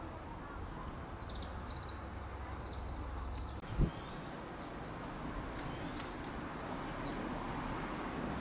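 Outdoor ambience: faint, short high chirps of small birds scattered through, over a steady low rumble. A single dull thump about four seconds in is the loudest sound, and a light click follows about two seconds later.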